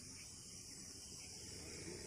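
Faint, steady high-pitched insect chorus, crickets or similar, with a low rumble beneath it.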